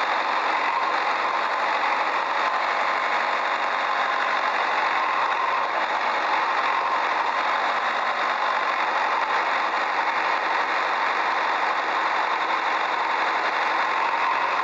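A small motor running steadily and evenly, a thin buzzing whir with no deep rumble and no change in speed.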